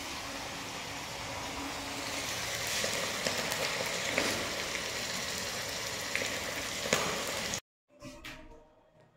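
Paneer cubes frying in hot oil in a steel kadhai: a steady sizzle with a couple of sharp clicks. It cuts off abruptly near the end, leaving only faint sounds.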